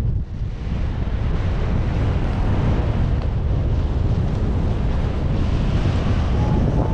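Wind buffeting the microphone, a steady loud rush strongest in the low end, as in paraglider flight. Near the end a paragliding variometer starts beeping in short, evenly spaced beeps.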